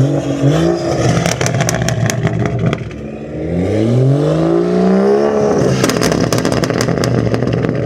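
BMW M240i's B58 single-turbo straight-six with a custom exhaust, blipped twice, then revved in one long rise and fall, followed by a quick run of crackles and pops on the overrun from a pop-and-bang map.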